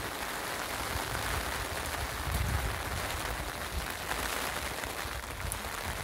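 Steady rushing-water noise, with irregular low rumbles on the microphone.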